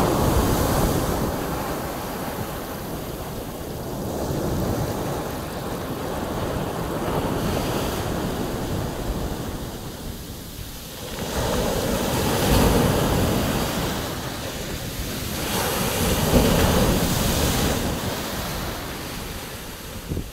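Sea surf washing up onto a beach, a steady rush of water that swells louder with the incoming waves: near the start, around twelve seconds in and again around sixteen seconds.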